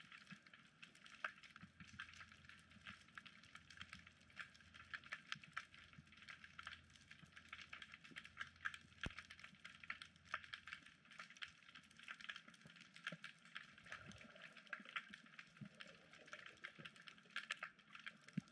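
Faint underwater crackling: a dense, continuous patter of tiny sharp clicks, typical of snapping shrimp on a reef. A faint low hum runs underneath for the first half.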